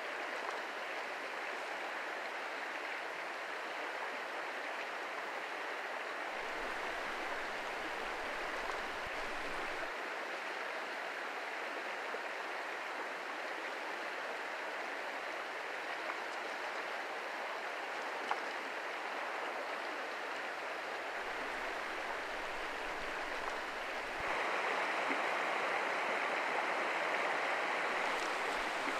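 Small mountain creek flowing over rocks: a steady rush of water. About 24 seconds in it grows louder and brighter as a shallow riffle runs close by.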